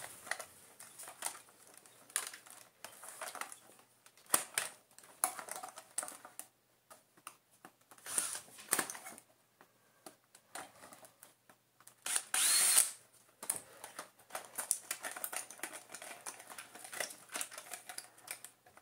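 Screwdriver working screws out of a vacuum cleaner's plastic housing: scattered small clicks, scrapes and rattles of screw and plastic. A louder brief burst with a rising tone comes a little after twelve seconds in.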